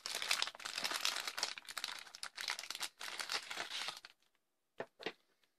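Clear plastic zip-lock bag crinkling as it is handled and opened and plastic blaster barrels are pulled out of it. The crinkling stops about four seconds in, followed by two light taps as a barrel is set down on the table.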